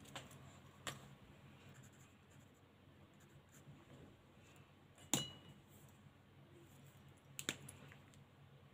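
Alcohol marker in use on a colouring page: faint scratching of the nib on paper, broken by a few sharp clicks, the loudest about five seconds in with a brief ring.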